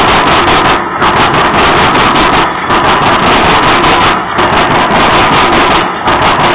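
CSX freight train of covered hopper cars rolling past close by: a loud, steady rumble and rattle of steel wheels on rail, dipping briefly in loudness four times at even spacing as the cars go by.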